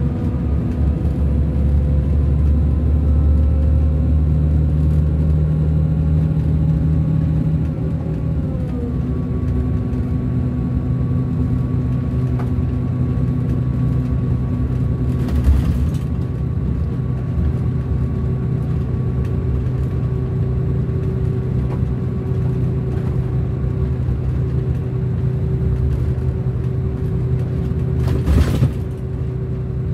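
Scania DC13 inline six-cylinder diesel of a coach running under way, heard from inside the passenger cabin: the engine note climbs slowly, then drops about nine seconds in as the Opticruise gearbox shifts up, and runs on steady. Two brief loud noises stand out, one midway and one near the end.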